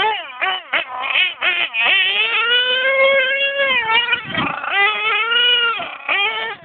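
Nitro RC truck's small engine revving hard, its high whine rising and falling with the throttle, with quick dips off throttle and a long stretch held high near the middle.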